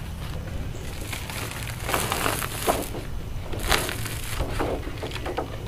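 A large sheet being peeled off the face of a freshly flipped reverse-method mosaic, crinkling and crackling in several surges from about two seconds in. The crackle is the model being stripped away from the glued stone, ceramic and glass tesserae.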